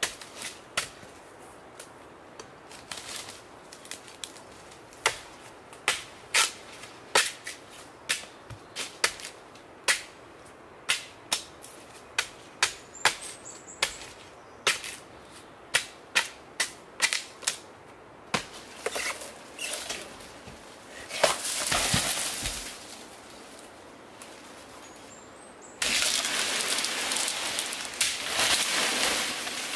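Machete blade chopping into a palm trunk: a long series of sharp chopping knocks, roughly one or two a second. About two-thirds in, the chopping gives way to stretches of loud rustling and crunching of fronds and brush, heaviest near the end.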